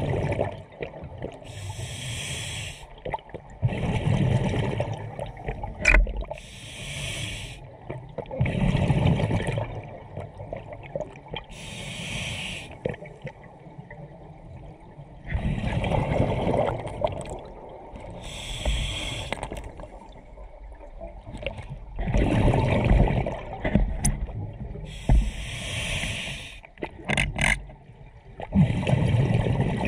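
Scuba diver breathing through a regulator underwater: the hiss of each inhale alternates with the low gurgling rumble of exhaled bubbles, a slow breath every five seconds or so. A couple of sharp clicks come about a fifth of the way in and near the end.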